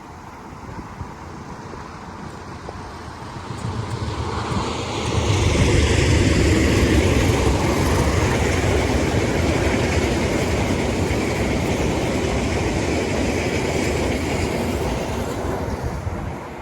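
A train passing close by: the sound builds over a couple of seconds, stays loud with a heavy low rumble for about ten seconds, then fades near the end.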